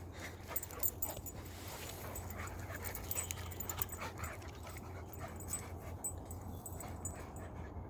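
Dogs panting during rough play, with faint irregular ticks, most of them in the first second or so, over a steady low hum.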